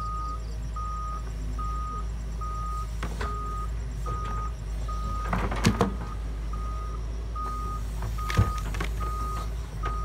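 Doosan DX140W wheeled excavator's diesel engine running steadily under its warning beeper, which sounds a bit over once a second. Two sharp knocks, about five and a half and eight and a half seconds in, come from the bucket working the soil.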